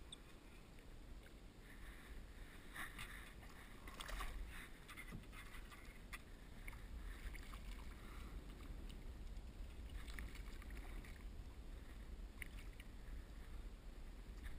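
Faint water sounds around a kayak: light splashing and sloshing with scattered small knocks and clicks, over a steady low rumble.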